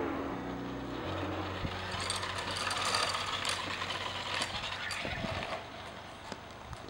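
Razor PowerCore e90 electric scooter riding over concrete: a steady low motor hum with rolling wheels and rattling clicks. It goes quieter near the end as the scooter slows to a stop.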